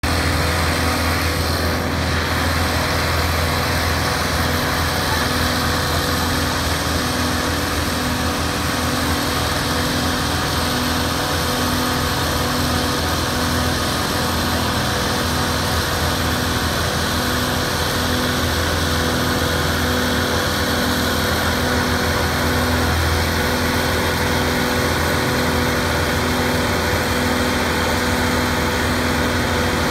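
Heavy diesel engine of a house-moving truck running steadily. It makes a low, even hum with a slow, regular pulsing under it.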